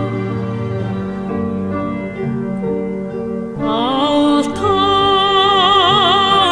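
Mongolian song: sustained instrumental notes, then about three and a half seconds in a woman's singing voice enters, sliding up into long held notes with a wide vibrato.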